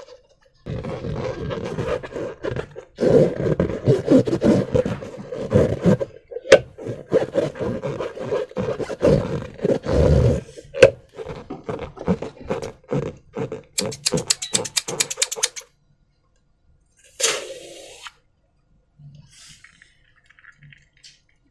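Rubber balloons being squeezed and handled with slime, giving dense crackling rubbery squeaks and squelches. A fast, even run of clicks comes just before the sound stops about three-quarters of the way through, and one short burst follows later.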